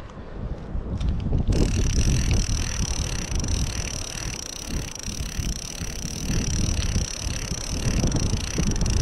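Wind buffeting the microphone. From about a second and a half in, a steady high whirr from the spinning spool of a multiplier reel on free spool as line pays out.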